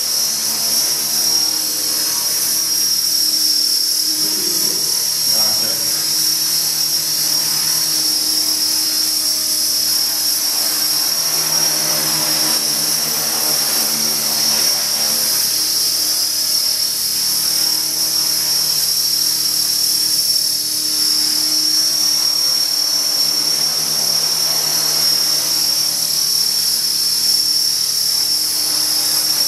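Small radio-controlled model helicopter hovering, giving a steady high-pitched whine over a lower hum.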